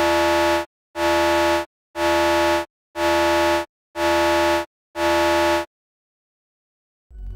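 Sampled electronic alarm sound (the 'Alarm' preset, Alert.wav, of the FX Sample - Grain instrument for HALion Sonic SE): six identical buzzy beeps at one steady pitch, each just under a second long and about one a second. After the sixth it stops.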